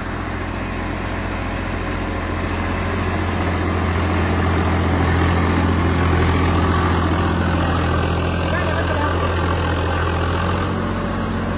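Swaraj 855 FE tractor's three-cylinder diesel engine running steadily under load while pulling a 9-foot rotavator through the soil in first low gear. It grows louder over the first five seconds, then holds level.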